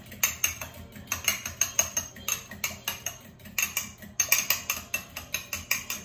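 A fork beating egg yolk and mashed anchovies in a glass measuring cup: quick, even clinks of the fork against the glass, about four a second.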